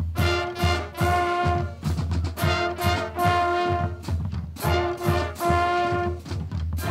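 Marching band brass section, trumpets and trombones, playing loud chords in short, repeated rhythmic phrases, with drums underneath.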